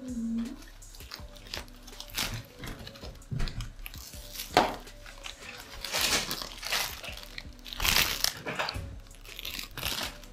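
Clear plastic gift bag crinkling and rustling in irregular bursts as it is handled and tied shut with curling ribbon.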